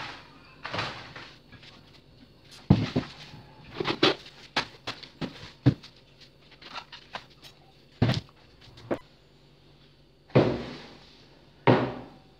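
Kitchenware in plastic packaging and metal barbecue gear being handled and set down on a wooden table: plastic crinkling with scattered knocks and clatters, the sharpest about a third of the way in and again about two-thirds in.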